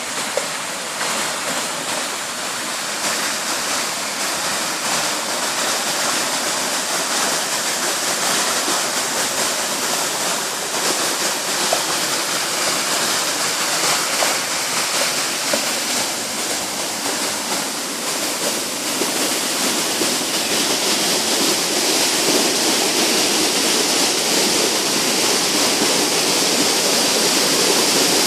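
Village stream waterfall rushing in a steady roar, swollen by days of continuous rain. It grows gradually louder over the stretch.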